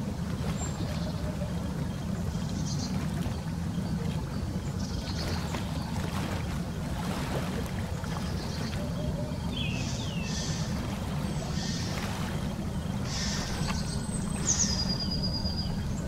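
Dabbling ducks feeding at the water's surface among reeds, with small splashes of water at intervals over a steady low wind rumble. A small bird gives two quick falling chirps about ten seconds in, and a thin falling whistle near the end.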